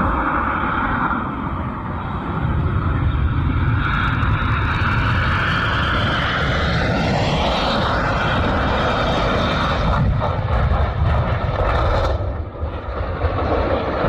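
Airplane engine running with a heavy rumble and rushing noise; around the middle a tone glides up in pitch. A few sharp clicks follow, and the sound changes abruptly about twelve seconds in.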